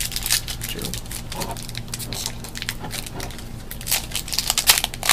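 Trading-card pack wrapper crinkling and tearing as a pack is opened and its cards handled, a run of small crackles that grows thicker and louder about four seconds in.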